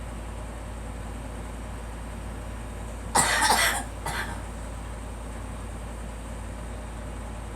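A girl coughing: a hard fit of coughs about three seconds in, followed by one weaker cough, over a steady background hum.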